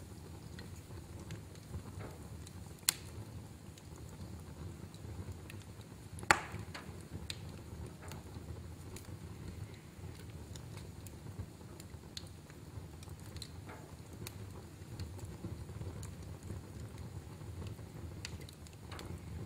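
Fire in a fireplace crackling, with a steady low rumble of burning and scattered small pops, two of them sharp and much louder, about three and six seconds in.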